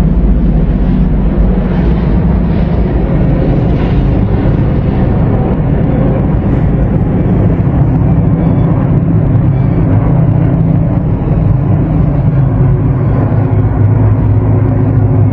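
A group of military helicopters flying low past: loud, steady rotor and engine noise with a deep hum.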